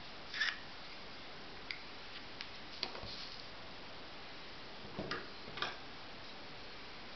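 A few short, irregular clicks and taps from tools being handled on a wooden tabletop: a cartridge-forming dowel with a rolled paper tube is set down on a paper template, and a metal caliper is picked up near the end. A steady faint hiss lies under them.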